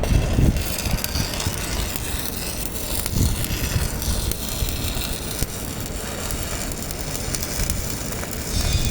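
Arc welding: the welding arc giving a steady crackling hiss, with a low rumble underneath.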